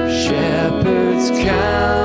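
Instrumental interlude of a contemporary worship song: sustained chords with guitar, no voices.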